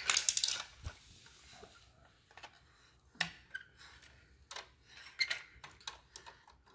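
Hard plastic toy parts clicking and knocking as a toddler handles a toy airliner against its plastic runway ramp: a quick clatter at the start, then scattered single clicks.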